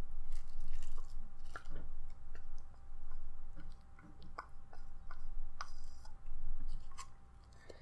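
Scattered light clicks and taps of utensils and takeout containers being handled at a meal.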